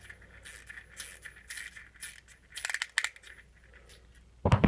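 Small toys being handled: scattered light clicks and taps, then a louder clatter of rattling near the end.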